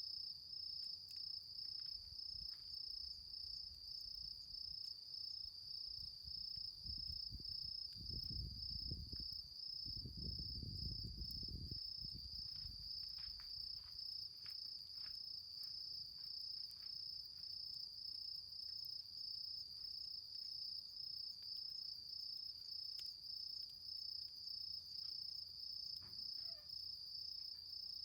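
Autumn crickets trilling steadily in a high, fast-pulsing chorus, with a low rumble about a third of the way in and a few faint ticks from the smouldering campfire embers.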